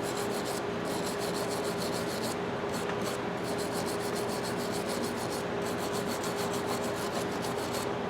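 Brass wire brush scrubbed back and forth in quick, steady strokes over the rusted steel of a pipe wrench, a continuous scratchy rasping. A faint steady hum runs underneath.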